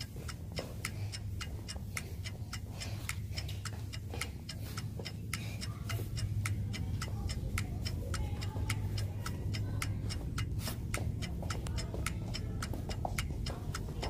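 Footsteps on a hard tiled floor: a run of sharp, uneven clicks, two to three a second, over a steady low hum.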